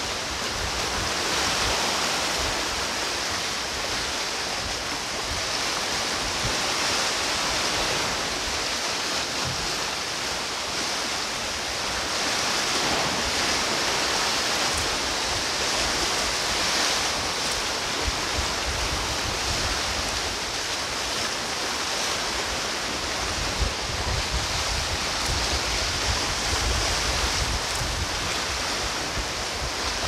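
Sea waves washing against a rocky shore, a steady rush of surf. Low wind rumble on the microphone grows in the second half.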